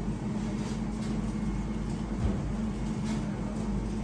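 Steady low mechanical hum over a low rumble, with one soft knock a little over two seconds in.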